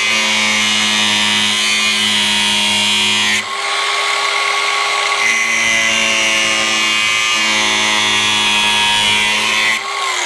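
Cordless angle grinder with a cutoff wheel cutting ribs off a plastic UTV hood panel: a steady motor whine that changes pitch and grows rougher a few seconds in as the blade bites into the plastic. The grinder spins down with a falling pitch near the end.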